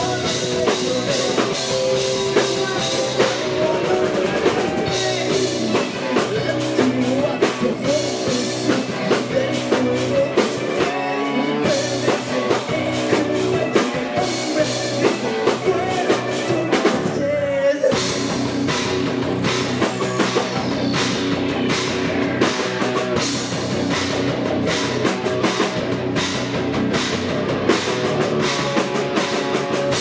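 Rock band playing live: drum kit, electric guitar and keyboards with a male singer. The drums stop briefly about seventeen seconds in, then the band comes back in.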